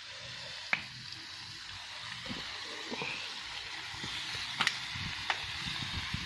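Spicy pork stir-fry sizzling steadily in a pan over high heat, with a little water just added. About three sharp clicks stand out over the sizzle.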